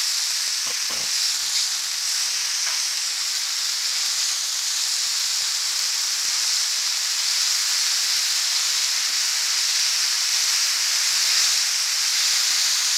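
Beef burger patties frying in bacon grease on a hot Blackstone flat-top griddle, a steady high sizzle throughout. A faint knock or two sounds about a second in.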